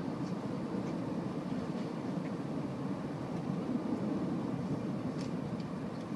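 Tokaido Shinkansen train running at speed, heard from inside the passenger cabin as a steady low rumble, with a few faint light ticks.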